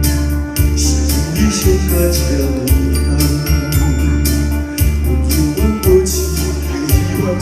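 Instrumental backing music with an electronic organ-like keyboard over a steady bass and a regular beat.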